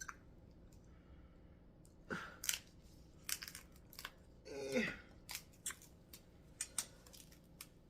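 Close-up eating sounds from a seafood boil: chewing, with scattered sharp clicks and cracks of shells and utensils handled at the table.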